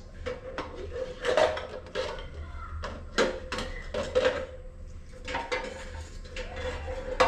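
Cooking pots clanking and knocking against each other and nearby dishes as they are lifted out and handled, a run of irregular clanks with a sharp knock at the very end. A faint steady hum sits underneath.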